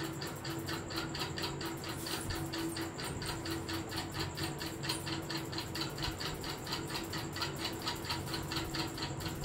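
Rapid, even mechanical ticking, about six ticks a second, over a steady low hum.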